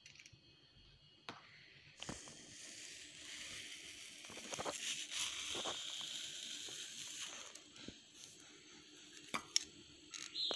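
A metal ice cream scoop scraping through hard-frozen mango ice cream in a metal tin, a rasping scrape lasting about five seconds, with a few light clicks of the scoop against the tin or bowl.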